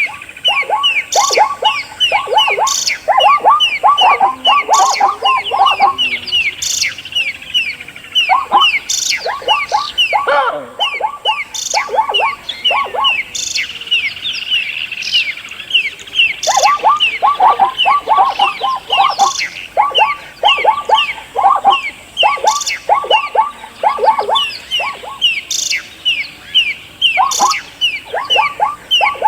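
Birds chirping: a constant stream of short, quick, downward-sliding chirps, with bursts of lower, rapidly repeated calls coming and going.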